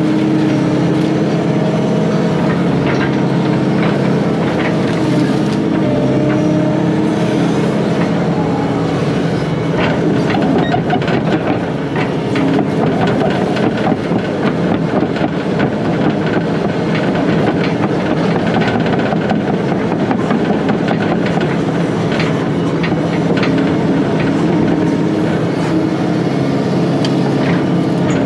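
Volvo 140 excavator's diesel engine running steadily under load, heard from the cab, with scattered clanks, knocks and cracks as the bucket and thumb grab and push brush and small trees.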